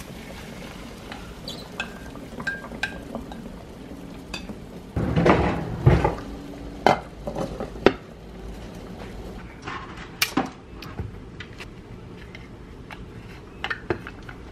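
Cookware sounds as an omelette cooks in a nonstick frying pan: scattered clinks and knocks of the pan, utensils and a glass lid. About five to six seconds in there is a louder stretch of clattering and scraping.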